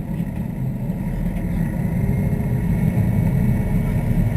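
A sportfishing boat's inboard engines running up, the low rumble getting louder over the few seconds, with a faint rising whine.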